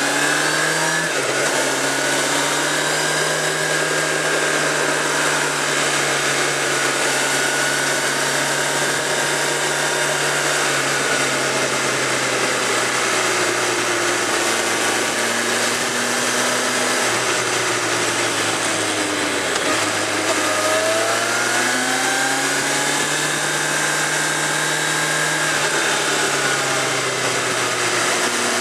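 Suzuki GSX650F's inline-four engine running at steady cruising revs under wind rush. About twenty seconds in the revs drop briefly, then climb again over a couple of seconds as the bike accelerates.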